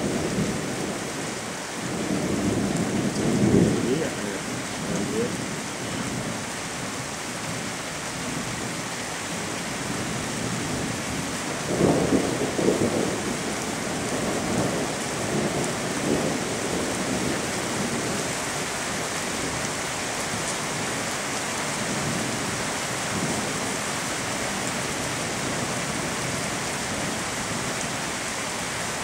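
Steady heavy rain of a night thunderstorm, with rolls of thunder rumbling over it, the loudest about two to four seconds in and again around twelve seconds in.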